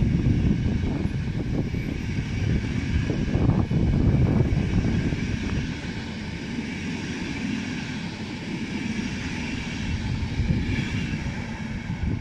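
Passenger coaches of a departing train rolling past on the rails, a steady rolling noise that eases a little after about six seconds as the end of the train moves away.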